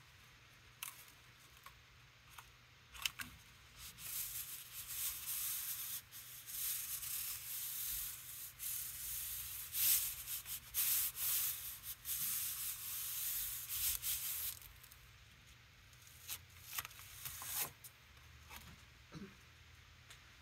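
Hands rubbing over the back of a corrugated cardboard stamp pressed onto a gel printing plate: a dry, scratchy rubbing that comes in close bursts for about ten seconds, starting about four seconds in. A few light clicks and taps from handling the cardboard come before and after.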